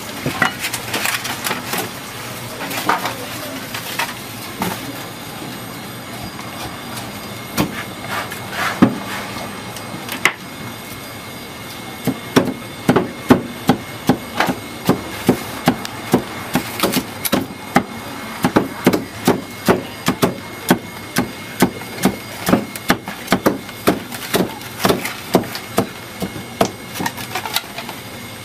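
Cleaver chopping roast meat on a thick round wooden chopping block. Scattered knocks at first, then, about halfway through, a steady run of chops, two to three a second.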